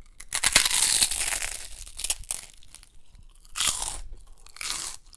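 Crunching bites and chewing of a muri moa, a ball of puffed rice bound with jaggery. A long, loud crunch comes with the first bite, then several shorter crunches as it is chewed.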